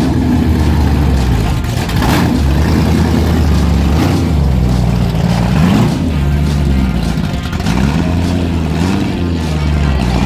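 Chevrolet Malibu race car's engine running loud through its exhaust as the car pulls away, with the revs rising briefly about six seconds in and again near eight seconds.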